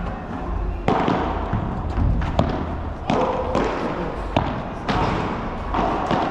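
Padel rally: sharp hits of the ball off rackets, court and walls, about one every half second to a second, over a steady low hum.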